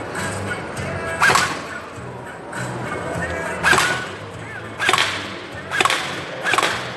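Airsoft gun firing single shots, five sharp cracks at uneven intervals of about one to two seconds.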